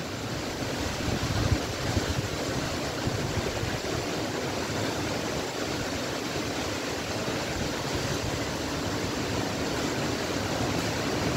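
Strong dust-storm wind rushing through trees as a steady noise, with gusts buffeting the microphone a few times in the first two seconds.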